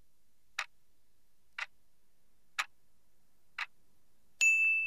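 Quiz countdown-timer sound effect: a clock ticking four times, once a second, then a bright bell-like ding near the end that rings on, marking that the answering time is up.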